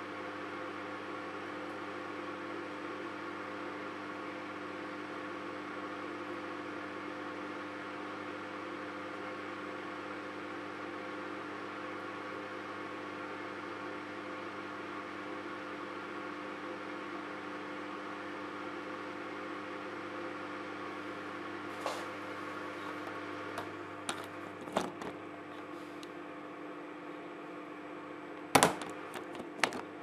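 Microwave oven running with a steady hum while heating a bath bomb. About three quarters of the way through come a handful of sharp pops or cracks from inside the oven, the loudest shortly before the end.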